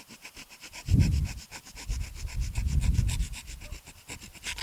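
Rapid, even scraping strokes on the handlebar, about nine a second, as something is rubbed or worked against the metal. Two gusts of breath hit the microphone, about a second in and again around the three-second mark.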